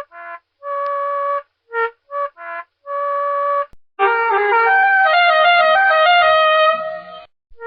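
Edited bus horn tooting in short and longer blasts of one pitch. From a little past halfway it plays a fast run of notes at changing pitches, like a tune, before short toots return at the end.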